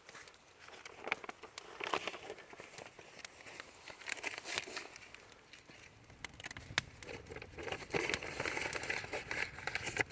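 Wood fire crackling, with many sharp pops and snaps over a hissing rush of flame that grows louder and denser in the second half.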